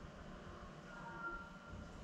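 Quiet room tone with a faint hiss and a few faint, brief high tones about a second in.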